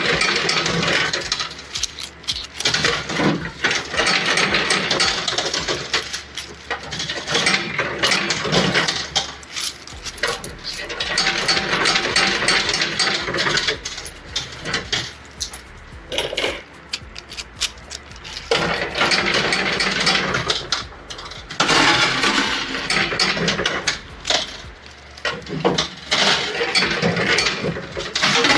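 Ten-peso coins clattering in a coin pusher machine: dense metallic clinking that comes in stretches of a few seconds with quieter gaps between.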